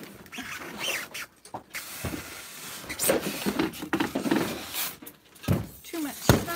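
Rummaging through a freezer: irregular rustling and scraping of items being shifted about, with a few knocks and two sharp clunks near the end.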